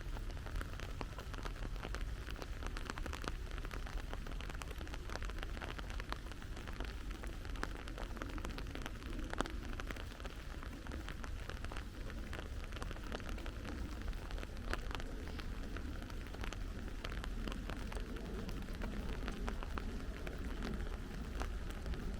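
Steady rain falling, with many separate drops ticking close by over an even hiss, and a constant low rumble underneath.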